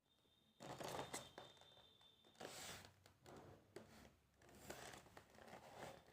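Faint rustling and crinkling with a few sharp clicks, over a faint steady high-pitched tone that stops about two and a half seconds in.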